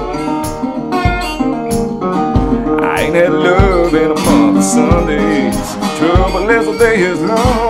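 Resonator guitar playing an instrumental blues passage, with some notes bent and wavering in the middle, over a low thump that keeps time about once every second and a bit.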